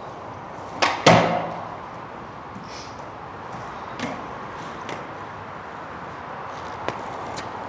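Skateboard popped for a trick and slapping down on concrete: two sharp cracks about a second in, the second the loudest, then the wheels rolling over rough concrete with a few lighter clacks of the board.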